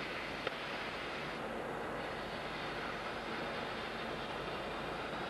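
Oxy-fuel gas cutting torch hissing steadily as it cuts through metal, with one short sharp click about half a second in.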